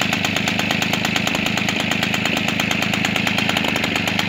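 Peugeot 103 moped's 50 cc two-stroke single-cylinder engine idling steadily on its new top end (new piston and cylinder) for a first run-in at idle. It runs noisier than normal because the exhaust leaks a little.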